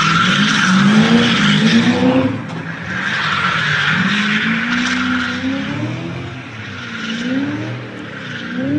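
Car engine revving hard, its pitch swinging up and down as the throttle is worked, with tyres squealing in a drift. The squeal fades after about five seconds, leaving the engine revving on.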